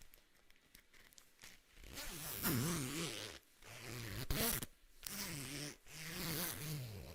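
Hoodie zipper being zipped again and again: four long zips, each about a second, starting about two seconds in, with the pitch wavering as the pull speeds up and slows down.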